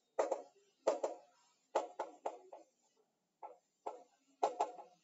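Chalk writing on a blackboard: a run of short, separate chalk strokes and taps, with a brief pause near the middle.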